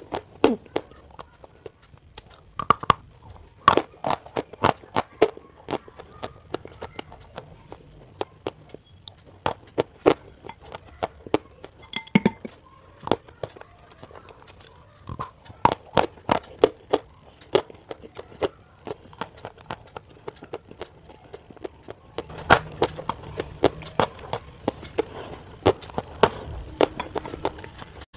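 Close-up crunching and chewing of a block of white chalk: many sharp, irregular crunches, sometimes several a second, as pieces are bitten off and chewed.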